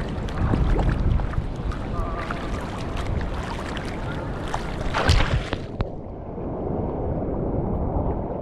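Surf and whitewater splashing around a bodysurfer, with wind buffeting a GoPro's microphone, loudest in splashes about half a second in and again near five seconds. About six seconds in the sound turns suddenly muffled and stays dull.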